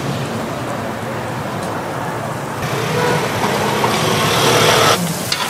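Steady street noise, a hiss that gets louder and brighter about halfway through and cuts off sharply near the end.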